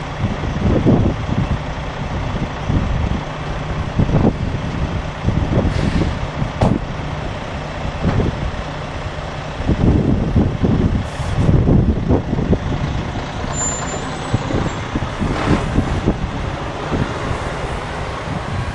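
Diesel engine of a 2016 International LoneStar semi truck running as the tractor-trailer pulls slowly forward and rolls past, with a few brief hisses of air. Wind buffets the microphone.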